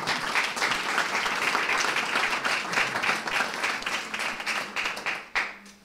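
Audience applauding, many hands clapping together, dying away shortly before the end.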